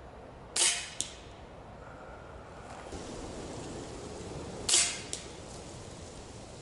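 Snowpeak M60 air rifle fired twice, about four seconds apart, each shot a sharp crack. Each is followed about half a second later by a fainter click, typical of the slug striking the 70 m target downrange.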